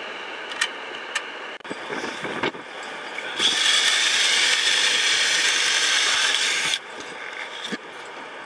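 A handheld power drill runs steadily for about three seconds, then stops abruptly. A few sharp clicks and knocks come before it.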